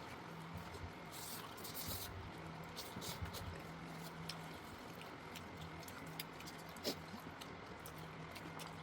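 Faint eating sounds: many short, wet mouth clicks and smacks from chewing food, scattered irregularly, over a low hum that comes and goes.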